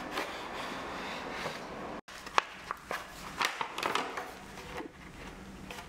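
Unboxing handling noise: the cardboard box opening and its inner tray sliding out, then the stand's white plastic wrapping rustling and crinkling, with a few sharp clicks and taps.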